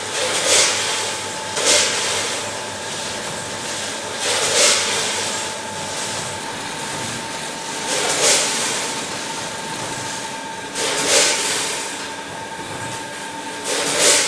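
Automatic pouch packing machine with a multihead weigher and vibratory feeder running: a steady machine hum with a constant tone, broken about every three seconds by a short burst of hiss as the machine cycles.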